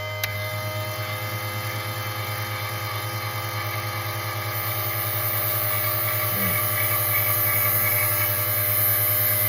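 Electric RC tire truer's motor spinning a foam touring-car tire at a steady speed, a steady pitched hum, slightly louder in the second half, with the cutting bit not yet touching the tire.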